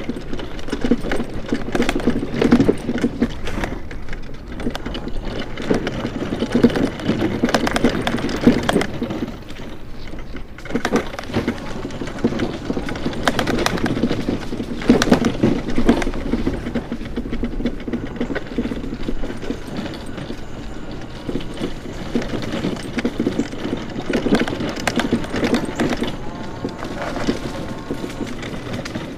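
Challenger X scooter rolling along a concrete trail, its body and mount rattling and clattering with many irregular knocks from bumps in the path. The noise eases off briefly about a third of the way in.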